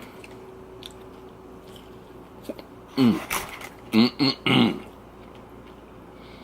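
A man's short wordless vocal sounds: one falling-pitched sound about three seconds in, then three quick short ones about a second later, with quiet room tone around them.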